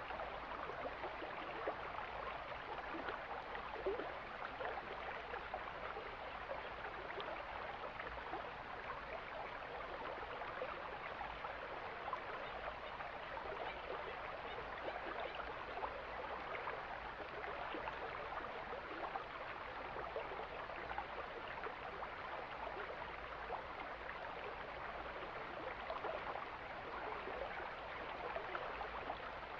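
Mountain stream flowing steadily: a constant, even rush of water.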